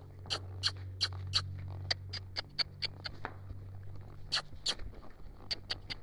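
Sharp, irregular clicks, about three a second, from a horse gaiting on arena sand under a rider, over a steady low hum that fades out near the end.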